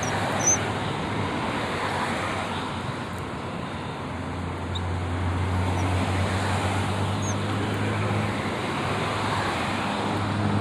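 Distant motor traffic: a steady rush of noise with a low engine hum that grows stronger in the second half. A few brief, faint high chirps sound over it.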